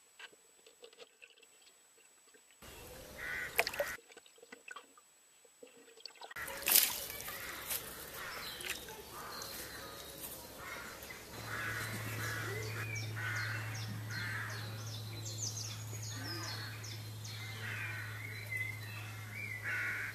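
Shallow water splashing and trickling as a wild cat wades through a pool, with a sharp splash about a third of the way in. Crows caw in the background, and a low steady hum comes in about halfway through.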